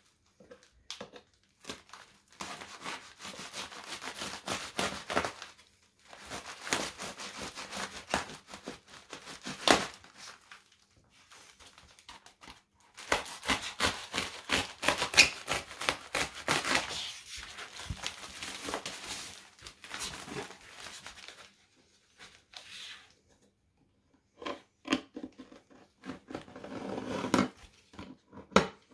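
Packing tape and plastic wrapping being cut with a knife and ripped off a shipping box, in several long rasping tears with crinkling. Near the end only quieter scattered clicks and rustles.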